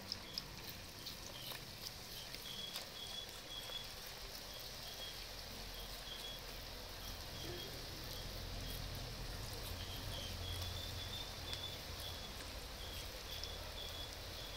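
Strands of murukku dough deep-frying in hot oil: a faint, steady sizzling hiss with small crackles as the oil bubbles around them. A faint high chirp repeats in the background.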